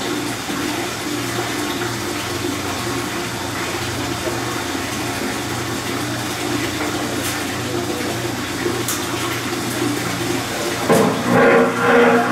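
632 cubic-inch big-block V8 marine engine idling steadily on a dyno, with a louder surge in three pulses near the end.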